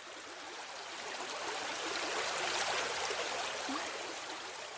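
A babbling brook: water running and trickling over stones, swelling louder in the middle and then fading.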